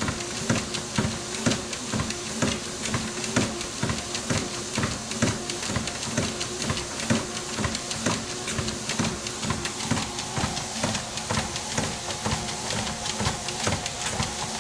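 Motorised treadmill running, its motor humming steadily under quick, regular footfalls as a person and a dog walk on the moving belt.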